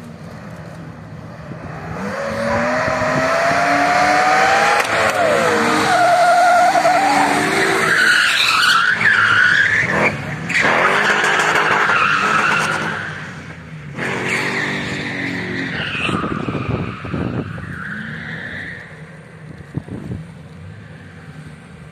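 A car drifting: its engine revs up, rising in pitch, and its spinning tyres squeal in long wavering stretches that break off and start again, dying away in the last few seconds.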